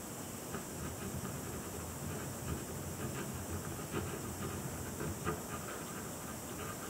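Pen scratching in short, irregular strokes on drawing paper, faint under a steady background hiss.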